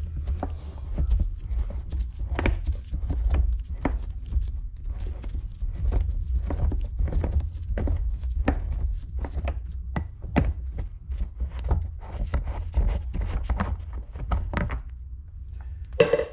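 Irregular clicks and knocks of hand tools and parts being handled while unbolting an ATV's gas tank and body cover, over a low steady rumble, with a louder knock near the end.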